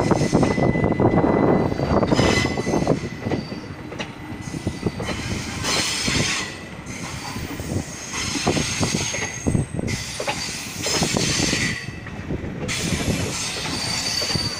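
Indian Railways passenger coaches of the departing Saurashtra Janata Express rolling past, wheels thumping and clattering over rail joints with intermittent higher-pitched wheel squeal.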